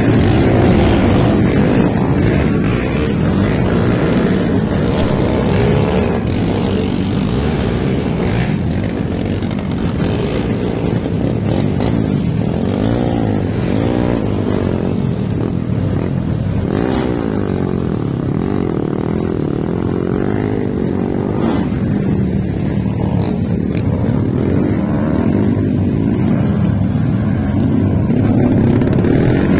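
Several underbone motorcycles racing, their engines revving up and down as they accelerate and pass.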